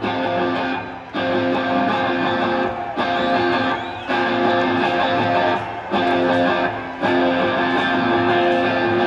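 Live rock band playing between sung lines, led by strummed guitar chords that change about every one to two seconds, with short breaks between them.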